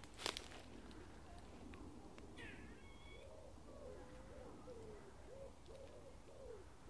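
Grey squirrel calling from the trees: a quick run of short, wavering calls from about four seconds in, roughly two a second. Earlier there is a sharp click just after the start and a brief higher call in the middle.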